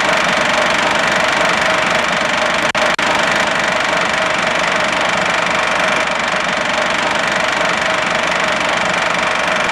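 Film projector running: a steady, loud mechanical clatter and whir, with two brief dropouts about three seconds in.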